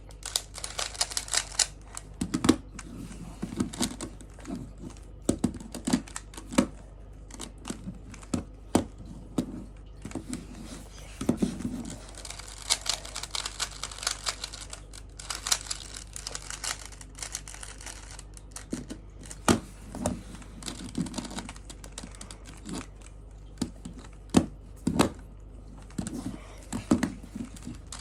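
Plastic 3x3 Rubik's cube being turned by hand: irregular runs of clicking and rattling as its layers are twisted, with occasional louder clacks.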